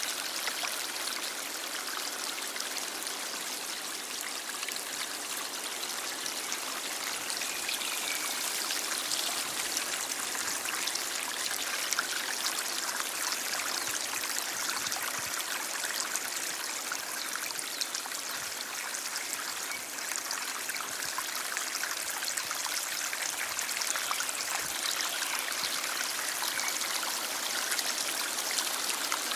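A stream flowing steadily: an even, unbroken rush of water, mostly high-pitched, with many tiny splashes.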